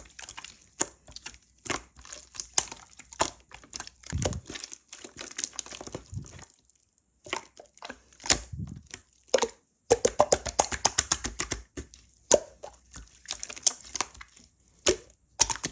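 Slime being squeezed, stretched and pressed by hand, giving clusters of quick crackling clicks and pops with short pauses between handfuls.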